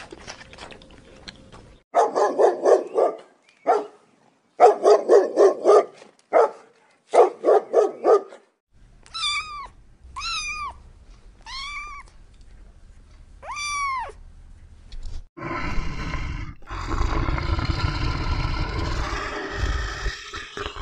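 A sequence of animal calls. First come four groups of rapidly pulsing calls, then a house cat meows four times, each a rising-and-falling meow. From about 15 seconds a long, loud, rough animal call takes over.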